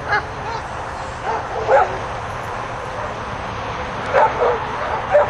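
A dog barking in short, sharp yips, about six of them in small clusters.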